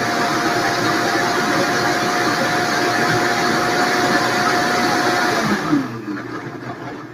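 High-powered countertop blender running at full speed, pureeing soaked lentils and water into a thin batter, with a steady whine over the motor noise. About five and a half seconds in it is switched off and the motor winds down with a falling pitch.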